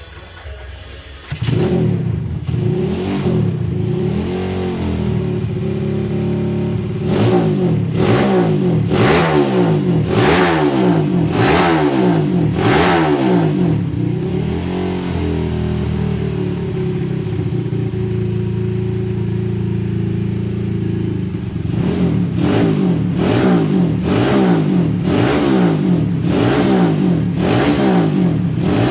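Suzuki Satria FU single-cylinder four-stroke motorcycle engine running and being revved over and over in short blips, about one a second, with a steadier stretch in the middle before the blips start again. The engine comes in sharply about a second in.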